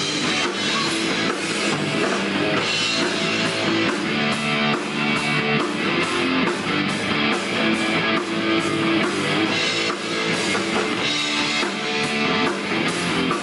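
Live rock band playing loud and without vocals: distorted electric guitar, electric bass and a drum kit with cymbals keeping a steady beat.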